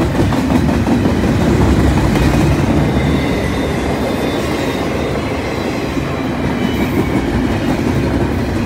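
Double-stack intermodal freight train's well cars rolling past close by: a steady low rumble of steel wheels on the rails, with a faint high squeal from the wheels. The sound eases slightly toward the end as the last cars go by.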